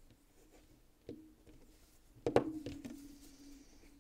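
Light clicks from handling titanium slipjoint pocket knives: a faint click about a second in, then a sharper click a little past two seconds followed by a couple of softer ones, over a faint steady low hum.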